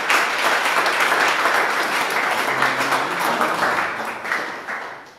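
A small group of people applauding, dying away near the end.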